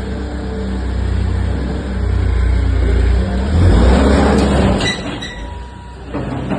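Heavy diesel engine of a demolition machine running with a deep steady rumble. It grows louder and rougher about four seconds in, then dies down about a second later.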